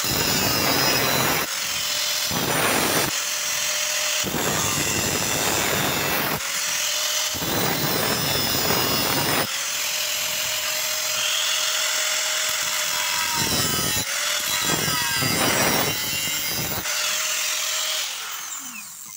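Electric angle grinder's disc cutting into rusty rectangular steel tube in repeated passes, with the motor's steady whine between passes. Near the end the grinder is switched off and its whine falls as it winds down.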